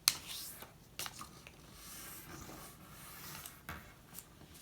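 A square of origami paper being folded diagonally and creased by hand: a sharp crackle at the start, then soft rustling and a few light clicks as the fold is pressed flat.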